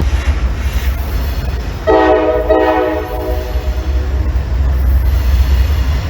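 Locomotive air horn sounding a chord of several notes about two seconds in, for a second and a half with a brief break in it, over the steady low rumble of a train.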